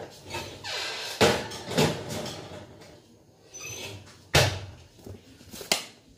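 A metal baking pan being put into an oven: a run of knocks and clunks with scraping between them as the oven door is opened, the pan slid in and the door shut. The sharpest knocks come about a second in and about four and a half seconds in.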